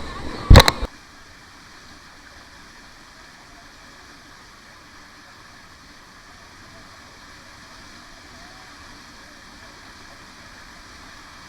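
A loud knock about half a second in, then a cut to a steady faint rush of running water.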